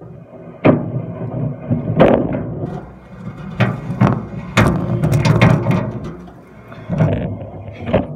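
A string of irregular knocks and thuds, about seven sharp ones, with rubbing and rumbling between them.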